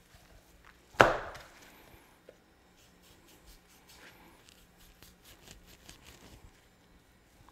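One sharp knock on a plastic cutting board about a second in, then faint clicks and scrapes of a chef's knife trimming fat from a raw brisket.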